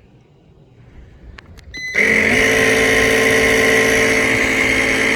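A few clicks, then about two seconds in an air compressor starts suddenly and runs steadily with a whine, inflating a go-kart tire to try to seat its bead on the rim.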